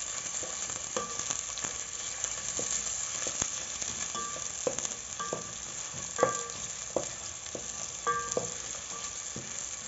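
Onions sizzling in hot oil in a sufuria (metal cooking pot), with repeated ringing clinks and scrapes of the spoon against the pot as they are stirred.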